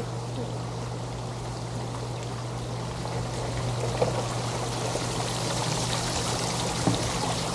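Fountain jets of a splash-play water table pouring and splashing into a shallow pool: a steady rush of water that grows slightly louder, with a steady low hum underneath and a couple of small knocks.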